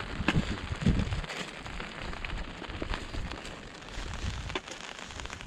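Rain pattering on a surface: a steady hiss with many scattered drop ticks.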